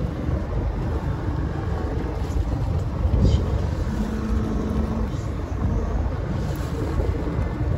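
Steady low rumble of a boat on open sea, with a brief low hum about four seconds in.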